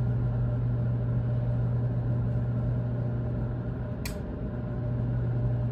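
Microwave oven running with a steady low hum while it heats chicken, with one sharp click about four seconds in.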